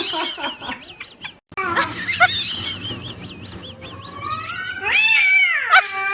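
A cat yowling: drawn-out, wavering calls, broken by a short gap about a second and a half in. About four seconds in, one long yowl rises and then falls in pitch.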